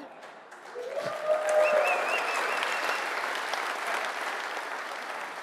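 Audience applauding: clapping starts about a second in, swells quickly, then slowly dies away.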